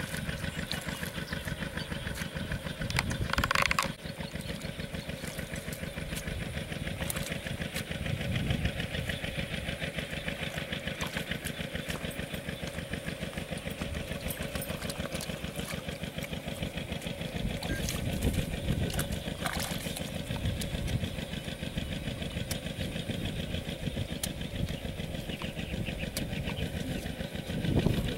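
A small engine runs steadily at idle, an even rapid pulsing throughout. A few louder thuds and scrapes come through it from a hoe chopping into mud.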